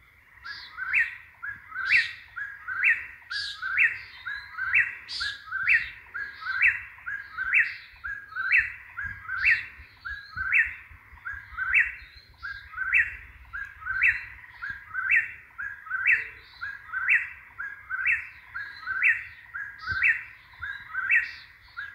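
Eastern whip-poor-will singing, repeating its three-note whip-poor-will phrase about once a second with the last note rising.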